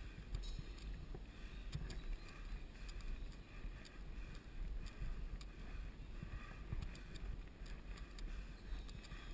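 Riding noise from a mountain bike rolling over cracked asphalt: a steady low rumble of wind buffeting the camera microphone and tyre noise, with scattered small clicks and rattles from the bike.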